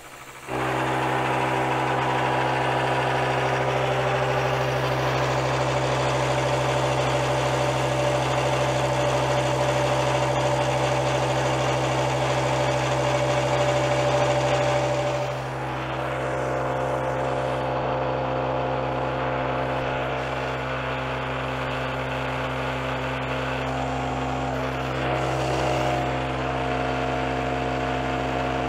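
Sharp knee mill (Bridgeport-type) running, its spindle humming steadily while the carbide cutter mills a bevel into AR400 steel plate, with a grinding cutting noise that eases about halfway through. The cut chatters somewhat, which the machinist puts down to the part being set up high.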